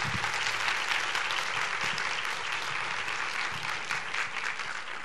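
Auditorium audience applauding, many hands clapping steadily, fading out near the end.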